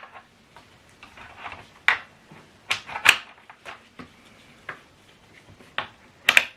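Sharp clicks and knocks of a Soundcore Motion Boom Plus portable speaker and its fittings being handled, about seven, spaced roughly a second apart, the loudest near the end.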